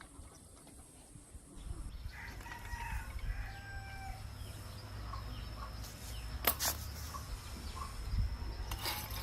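A chicken calling in long drawn-out notes over a low rumble, with a sharp knock about six and a half seconds in.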